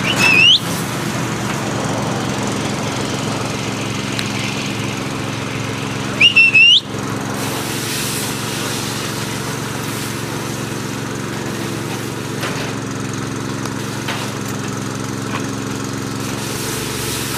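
Small engine running steadily, with two loud short whistles, each rising sharply at the end: one at the very start and one about six seconds in.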